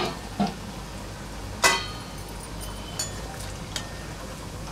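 Pieces of kothimbir vadi (steamed coriander and gram-flour cakes) deep-frying in hot oil: a steady sizzle, with a few sharp clicks, the loudest about a second and a half in.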